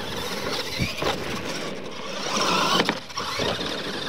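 Radio-controlled monster trucks racing on a dirt track: a high-pitched whine and scrabble of motors and tyres that swells to its loudest about two and a half seconds in, with a couple of sharp knocks as the trucks hit ramps.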